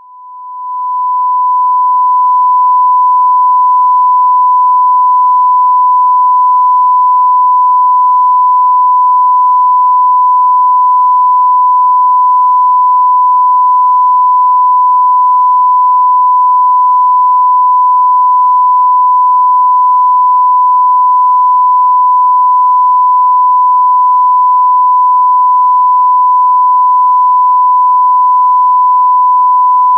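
Steady 1,000 Hz sine test tone from an audio test disc, a single pure pitch held at constant level after fading in over the first couple of seconds.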